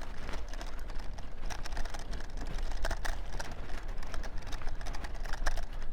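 Vehicle interior noise while driving: a steady low rumble with frequent irregular light clicks and rattles.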